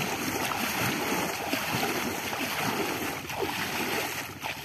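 Continuous, irregular splashing of river water as a person wading in it sweeps his arms through the surface.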